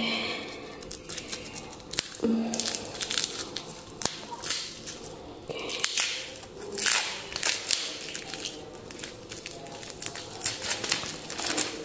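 Plastic wrapping crinkling and crackling in irregular bursts as a small toy's packaging is handled and opened by hand.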